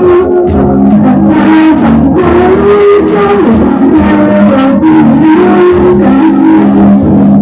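Loud music led by a guitar, playing a melody with sliding notes over a steady low accompaniment.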